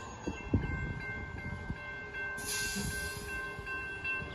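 Approaching Union Pacific freight train rumbling toward a grade crossing while the crossing signal bell sounds steadily with ringing high tones. A brief hiss comes a little past halfway.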